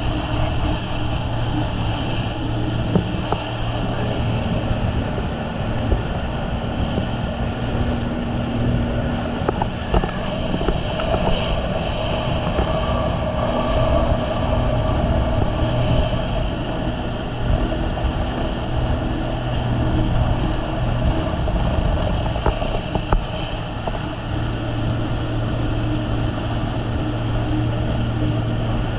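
Jet ski engine running steadily at speed, with the rush of water under the hull.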